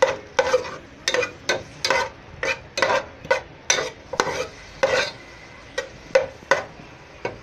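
A cooking utensil stirring and scraping through sautéing garlic, onion and tomato in a frying pan, in quick uneven strokes about three a second, with a faint sizzle of the oil underneath.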